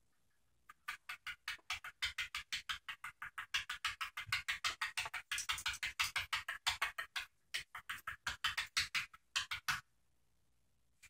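Small plastic Lego pieces clicking and clattering as hands sift through a pile of them on a board, a quick run of clicks about six a second that starts under a second in and stops a little before the end.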